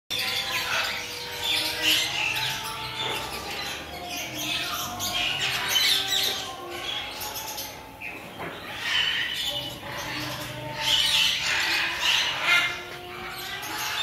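Many caged birds squawking and calling over one another in a busy, continuous chorus.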